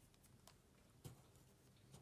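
Near silence: faint room tone with a few small, faint clicks, one about half a second in and a sharper one just after a second in.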